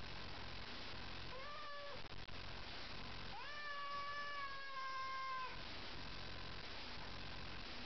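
Domestic cat yowling at another cat in a hostile standoff: a short yowl, then a longer drawn-out one of about two seconds that holds a steady pitch and sinks slightly at the end.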